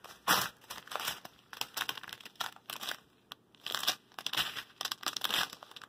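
Small plastic bags of round diamond-painting drills crinkling as they are handled, in short irregular crackles with a brief pause about halfway through.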